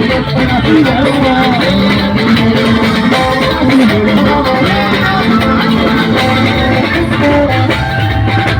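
Band music led by plucked guitar lines, playing steadily and loud.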